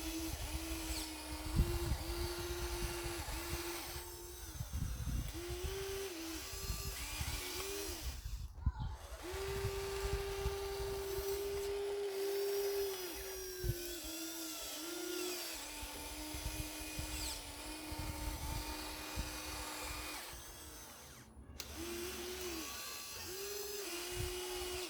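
Small electric motors of radio-controlled construction models whining, the pitch stepping up and down as the controls are worked, with low knocks underneath. The sound cuts off suddenly at the end.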